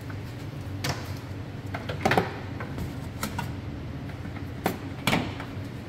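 A steady low background hum with a handful of scattered knocks and clatters, the loudest about two seconds in and again about five seconds in.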